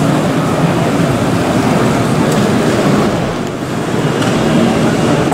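Steady crowd din of a busy exhibition hall, a dense murmur of many voices, with a brief dip about three and a half seconds in.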